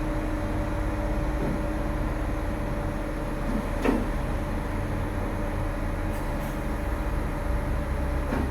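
Mobile crane's diesel engine running steadily during a lift, a low rumble with a steady hum, and one short click about four seconds in.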